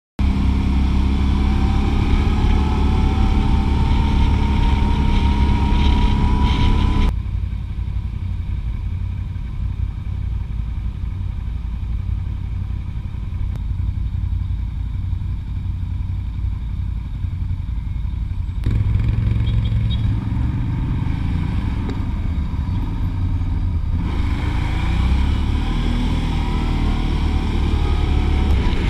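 Quad bike (ATV) engine running under way on a paved road, heard from the rider's own machine, with a rising whine in the first few seconds as it gathers speed. The sound drops abruptly about seven seconds in and picks up again later.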